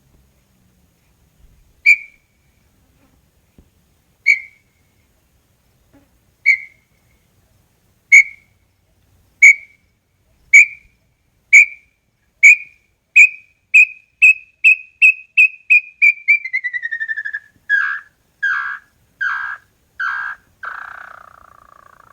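Small-billed tinamou (inhambu-chororó) singing: clear whistled notes, about two seconds apart at first, come faster and faster and run into a quick falling trill about 16 seconds in, followed by four lower, rougher notes near the end.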